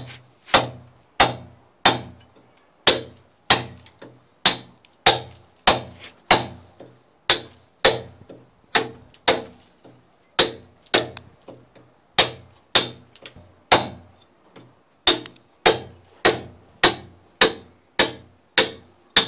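Club hammer striking a cold chisel held against a plastered wall in steady blows, a little under two a second, each a sharp hit with a short ring, chipping a hole through the render.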